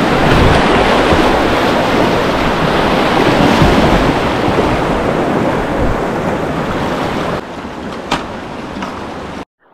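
Whitewater rapids rushing and churning around a kayak: a loud, steady wash of moving water. About seven seconds in it drops to a quieter flow of calmer water, with a single short, sharp sound about a second later, and then cuts off.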